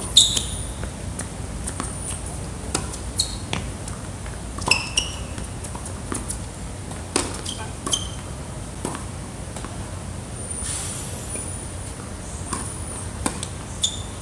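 Tennis rally on a hard court: racquets striking the ball and the ball bouncing, sharp pops at irregular intervals about a second apart, with brief high squeaks of shoes on the court surface.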